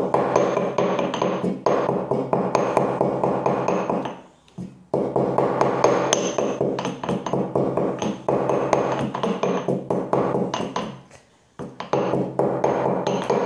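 Stone pestle pounding chillies in a stone mortar: rapid repeated knocks with a ringing ping, stopping briefly twice.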